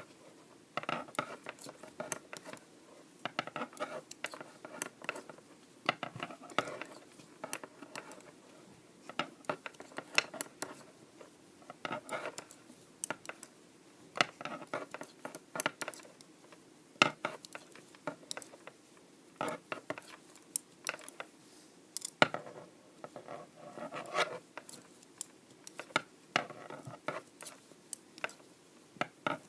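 Knitting needles clicking and scraping against each other as stitches are knit across a row, in irregular sharp clicks several times a second.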